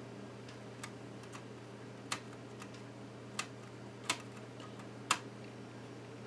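A few sharp, separate clicks about a second apart, of small screws and tools being handled and set down during laptop disassembly, over a steady low hum.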